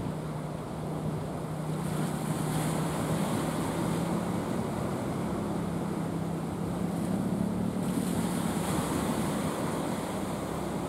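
Inboard engine of an outrigger fishing boat running steadily: a low hum that edges up in pitch toward the end. Behind it is a steady hiss of surf and wind on the microphone, which swells twice.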